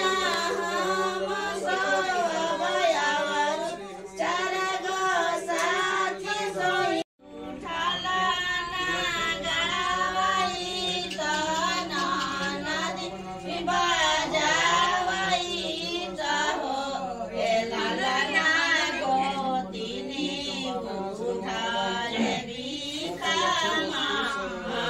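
A group of voices singing a devotional song together over a steady low hum, with a brief drop-out about seven seconds in.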